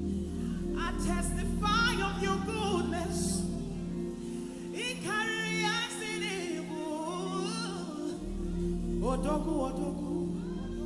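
Live gospel worship music: steady sustained chords and bass under a solo voice singing wordless, sliding phrases three times.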